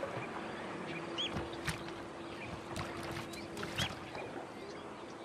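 Water splashing and sloshing in the shallows, with a few sharp knocks, while a bird gives short high chirps every second or two over a faint steady hum.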